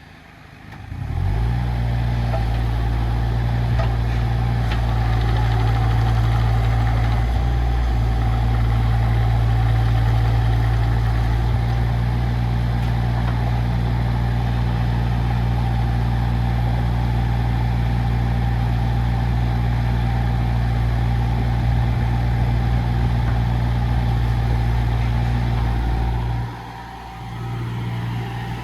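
Three-cylinder Perkins diesel of a JCB 8025 ZTS mini excavator. About a second in it is throttled up from idle and held at steady high revs, then drops back to idle near the end.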